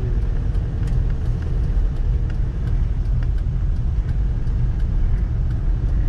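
Steady low rumble of a vehicle being driven along a road, engine and tyre noise with no change in pace.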